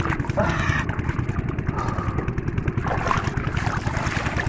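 A small engine running steadily with a fast, even chugging, with a few brief voices over it.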